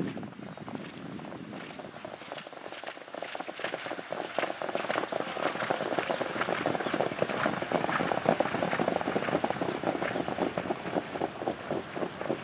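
Hoofbeats of a group of harness horses pulling sulkies on a sandy track, a rapid, dense clatter that grows louder about four seconds in as they pass close and stays strong through the end.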